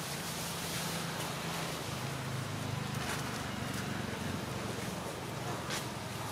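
Outdoor ambience: a steady low engine hum under a constant hiss, with a few faint clicks.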